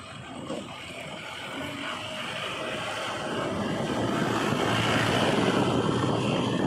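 Heavy diesel engine of earthmoving machinery running, growing louder over the first few seconds and then holding steady.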